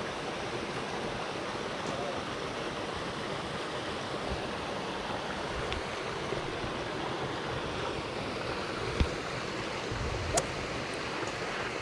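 Small rocky mountain stream running over stones and a low cascade, a steady rush of water. Two short sharp clicks sound near the end.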